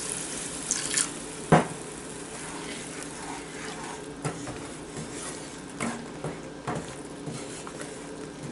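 Water poured into a pan of thick curry masala paste, then a wooden spatula stirring it in. A sharp knock of the spatula on the pan about a second and a half in is the loudest sound, followed by scattered taps and scrapes.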